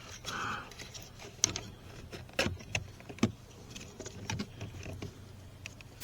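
Irregular sharp clicks and taps of a screwdriver prying at a stuck plastic power window switch and its clips in a door panel, about six over a few seconds, with a faint low hum underneath.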